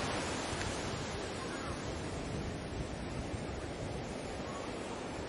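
Baltic Sea surf washing in a steady rush of waves, with some wind on the microphone.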